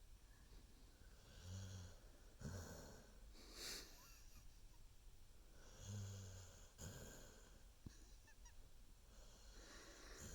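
Faint baby snoring: two short, low snores about four and a half seconds apart, each followed by a breathy exhale.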